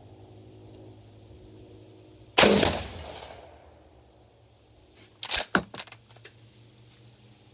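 A single shotgun shot firing a handloaded Lee Drive Key slug, a sharp report that rings out for about a second. The shooter feels this 14-grain Bullseye load is a little overpressured. A few seconds later comes a quick clatter of several sharp clicks.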